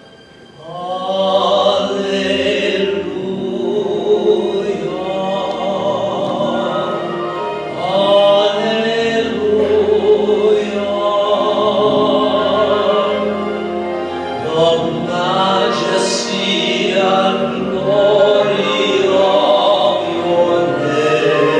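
A man singing a solo hymn with vibrato on long held notes. After a brief pause, the voice comes back in about a second in.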